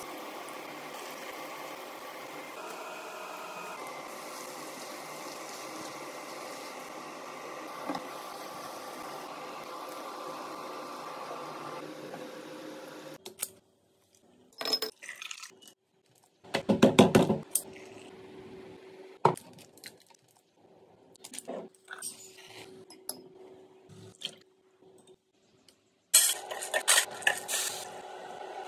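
Sliced onions sizzling steadily in hot oil in a frying pan for about thirteen seconds. The sound then cuts to a quieter stretch of scattered clinks and knocks around a drinking glass as powder is poured in. Near the end there is a louder clattering of a spoon in a steel pot of milk.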